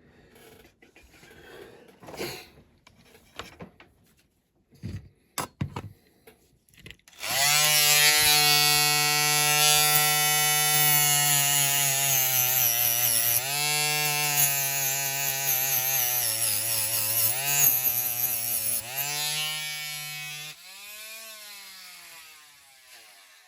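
A small electric rotary tool starts about seven seconds in and runs steadily while cutting a marked length off a safety mat stick, its pitch dipping and wavering under load; near the end it is switched off and winds down with a falling pitch. Light handling clicks come before it starts.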